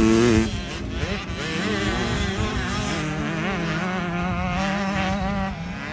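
Motocross dirt bike engines revving, their pitch rising and falling through the gears. The sound is loudest for the first half second.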